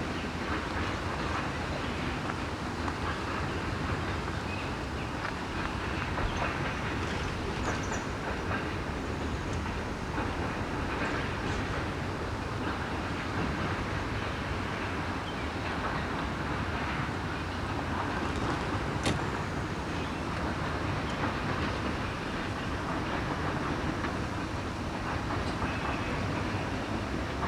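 Freight train cars rolling steadily past, a continuous rumble of wheels on rail with scattered clicks as the wheels cross rail joints.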